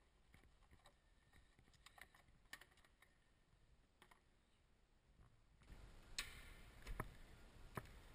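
Near silence broken by faint scattered clicks and light knocks of a plastic-and-rubber air intake duct being handled and lifted out of the engine bay. About two thirds in, a low background noise rises, with a few sharper clicks.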